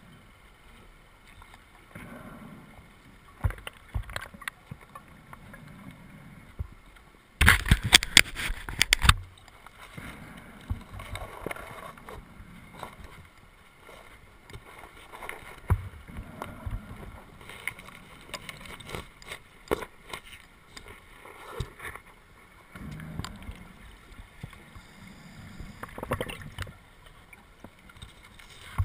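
Scuba diver's breathing heard underwater through a camera housing: a regulator with bubbling exhalations every few seconds, and one loud rush of bubbles about seven seconds in that lasts nearly two seconds.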